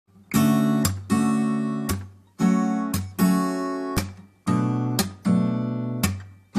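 Background music: acoustic guitar strumming chords in a repeating pattern, two strums about every two seconds, each ringing out and fading before the next.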